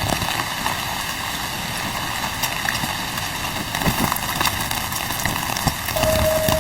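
Steady rain falling, with scattered drop hits. A steady motor hum starts near the end.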